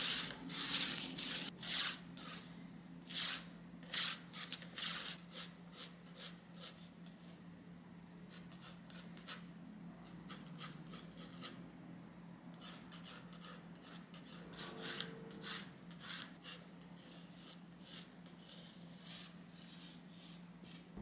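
Staedtler graphite pencil sketching on watercolour paper: short, quick scratchy strokes, heavier in the first few seconds and lighter after, with a faint steady low hum underneath.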